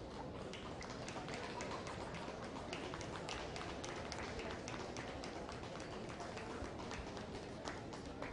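Murmur of a crowd in a large hall, with many scattered taps and claps.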